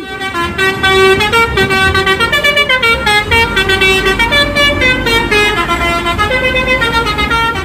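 Indonesian 'telolet' multi-tone bus horn playing a quick tune, its notes stepping up and down in short pulses several times a second, over the coach's engine running.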